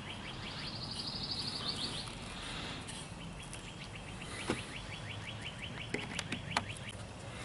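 A bird trilling in the background: two long, dry trills of quick repeated high notes, the second starting about three seconds in. A few light clicks come in the middle and near the end.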